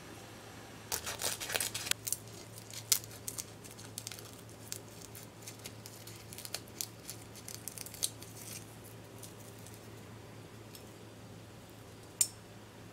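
Scissors cutting through a dry sheet of nori seaweed: a run of crisp, crackly snips starting about a second in and lasting around seven seconds. Near the end there is a single sharp click.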